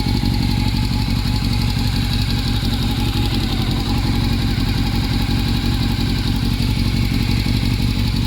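Honda CB400 Super Four inline-four engine idling steadily after its valve clearances have been reset; the owner suspects an exhaust leak for what noise remains.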